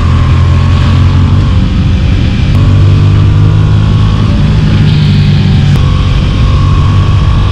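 Motorcycle engine running, its low note shifting slightly in pitch a few times.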